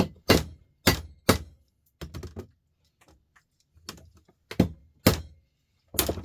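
Irregular sharp knocks and clicks of hand tools on a small metal electrical part being broken open for scrap, with a quiet pause in the middle.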